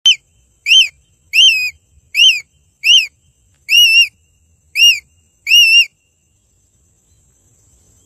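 A young eagle calling: eight high, whistled cries, each rising then falling in pitch, a little under one a second, the cries stopping about six seconds in.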